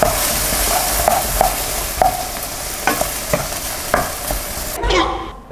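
Food frying with a steady sizzle in a pan on a gas stove, while a wooden spatula stirs it and knocks against the pan about ten times at an uneven pace. The sizzle cuts off suddenly near the end.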